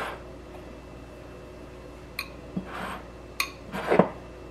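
Glassware being handled on a kitchen countertop: a small glass jar and a glass bowl with a spoon in it are set down and moved. There are two short ringing clinks about two and three and a half seconds in, a few soft knocks between them, and a louder knock near the end.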